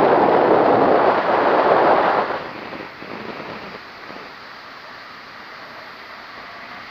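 Airflow rushing over the microphone on a tandem paramotor in flight, loud for the first two seconds or so, then settling to a steadier, quieter rush with the motor's drone underneath.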